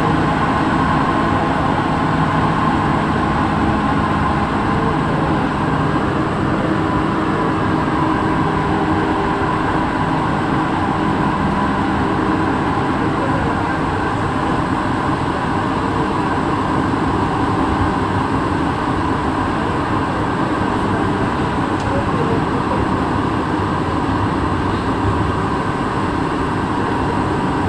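Santiago Metro NS16 rubber-tyred metro train running through a tunnel, heard from inside the driver's cab: a steady running rumble with a few held tones from the train's drive.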